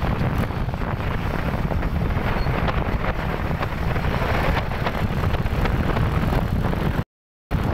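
Wind rushing over the microphone of a moving motorcycle, a steady low rumble with the ride noise of the bike mixed in. The sound drops out completely for about half a second near the end.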